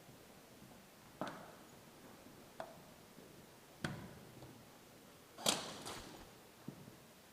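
Scattered single sharp cracks from airsoft play: about five separate snaps, spaced a second or more apart, with the loudest about five and a half seconds in.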